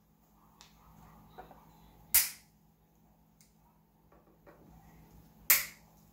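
Cutters snipping the tails off nylon wire ties: two sharp snaps, about two seconds in and again near the end, with faint handling clicks between.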